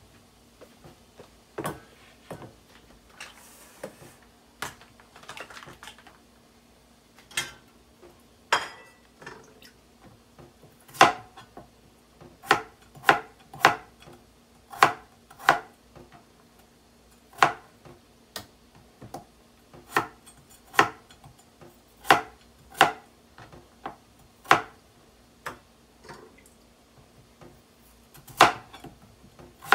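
Chef's knife slicing through peeled raw potatoes, each cut ending in a sharp knock on a plastic cutting board, at an uneven pace of about one cut a second. A faint steady hum lies underneath.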